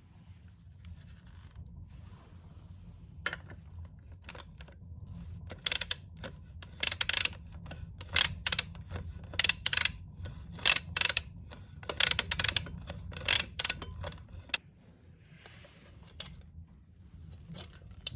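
Metal tools and parts clinking and scraping in a run of short, sharp bursts, over a steady low hum.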